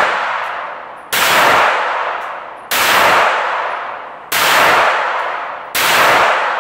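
Handgun fired four times in a steady rhythm, about a second and a half between shots, each sharp crack followed by a long echoing decay off the walls of an indoor firing range.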